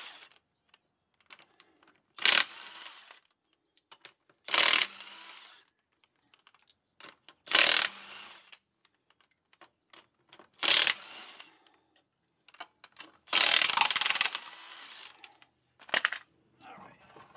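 DeWalt cordless impact wrench spinning the lug nuts off a car wheel: six short bursts a few seconds apart, each trailing off briefly, with one longer burst about two-thirds of the way through.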